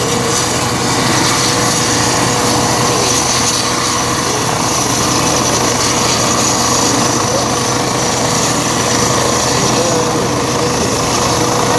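A helicopter's turbine engine and rotor running steadily on the ground: a loud, unchanging whine over broad noise.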